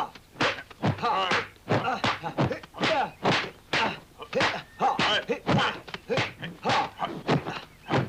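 Dubbed kung fu film fight sound effects: a rapid run of punch and block impacts, about two to three a second, with short shouts and grunts from the fighters among them.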